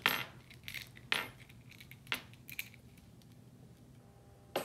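Scattered light clicks and clinks of fishing tackle being handled while monofilament leader is wrapped in loops around a finger to tie a knot, with a sharper click near the end.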